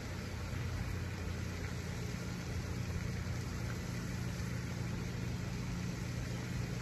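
Steady low hum of an idling engine, even and unchanging.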